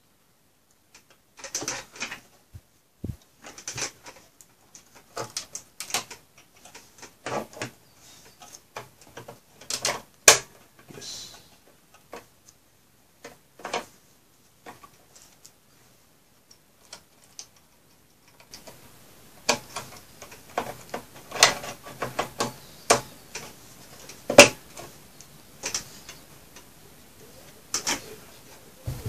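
Irregular clicks, taps and rustles of cables and plastic connectors being handled inside an HP ProLiant Gen8 MicroServer's sheet-metal chassis, with a few sharper knocks against the metal. A faint steady hiss comes in about two-thirds of the way through.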